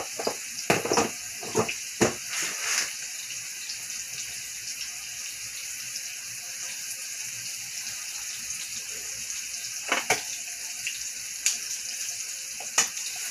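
Boneless, skinless chicken breasts searing in hot oil in a skillet: a steady sizzle. A few sharp clicks and knocks come in the first three seconds, and again about ten seconds in and near the end.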